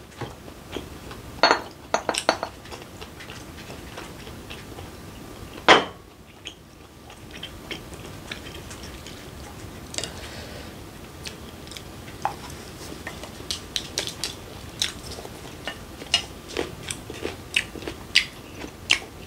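Spoon clinking and scraping on a plate as food is scooped, with close-up chewing of lettuce and raw fish. The sound is a run of scattered clicks: a few louder knocks near the start and one about six seconds in, then many small quick clicks toward the end.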